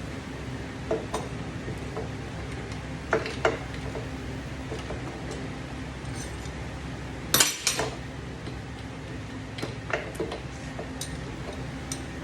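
Hand tools and metal engine parts clinking and tapping during a motorcycle cylinder teardown: scattered light clinks, the loudest pair about seven and a half seconds in, over a steady low hum.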